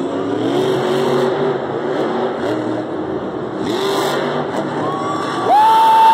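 Madusa monster truck's engine revving up and down as the truck pulls into a wheelie in an indoor arena. About five and a half seconds in, a loud, steady, high horn-like tone starts and holds.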